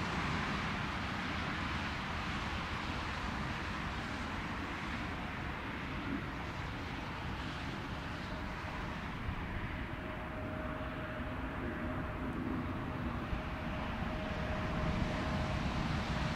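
Airbus A380 jet engines running, a steady rumble with a faint steady whine that comes in about ten seconds in and fades near the end.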